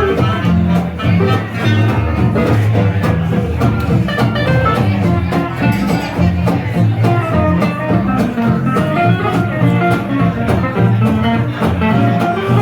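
Live jazz band playing a swing tune, with guitar to the fore over a steady beat.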